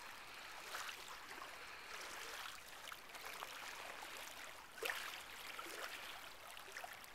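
Faint rushing and trickling of the Yukon River's water flowing past the bank, with a brief knock about five seconds in.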